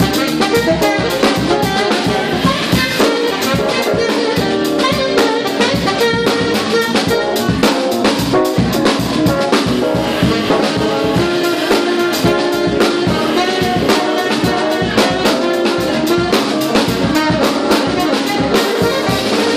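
Live funk band: a tenor saxophone plays a melody over a drum kit's steady, busy beat.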